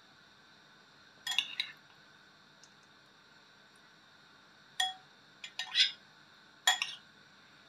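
A metal teaspoon clinking against a dish as jelly cubes are spooned out and set down: a few short, sharp clinks in small clusters, the loudest in the second half.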